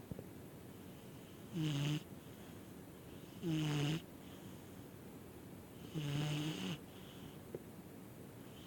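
Pit bull–American bulldog mix dog snoring in its sleep: three snores about two seconds apart, each a low rumble with a breathy hiss lasting about half a second.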